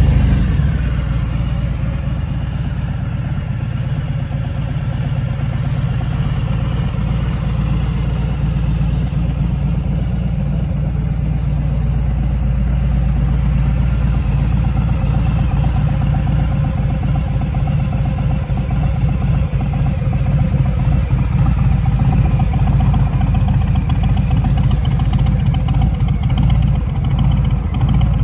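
Harley-Davidson Softail Sport Glide's Milwaukee-Eight 107 V-twin, breathing through a Cobra aftermarket exhaust, idling steadily just after starting, with a slightly louder moment right at the start.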